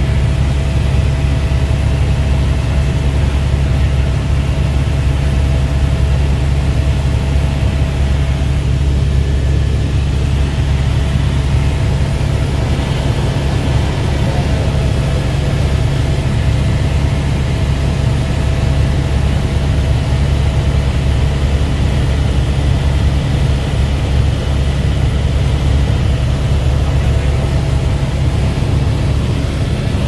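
Helicopter turbine and rotor noise heard inside the cabin: a loud, steady low drone with a faint steady whine above it.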